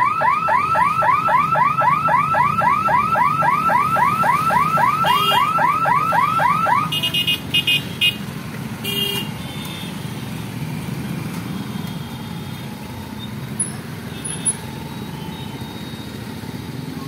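Level-crossing warning siren wailing in fast repeated sweeps, about four or five a second, stopping suddenly about seven seconds in. Under it and after it, motorcycle and scooter engines run as traffic moves across the tracks, with a few short horn beeps.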